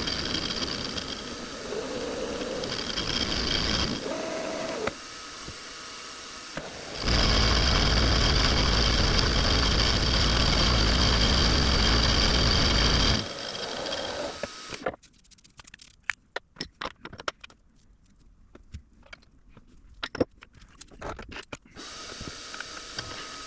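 A benchtop metalworking machine tool running, a steady whine over cutting and scraping noise, loudest in the middle, then shutting down about two-thirds of the way in. After it stops come scattered sharp clicks and taps.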